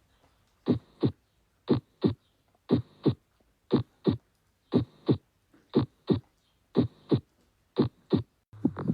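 Recorded heart sounds: a regular two-part lub-dub beat, eight beats at about one a second, with quiet gaps between them.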